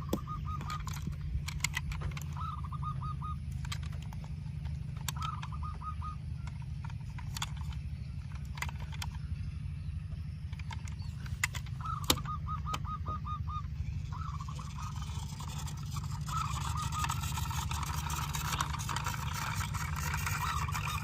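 Poultry calling: short, rapid rattling call series repeat several times over a steady low hum, with scattered clicks; in the last third the calling thickens into a continuous noisy chatter.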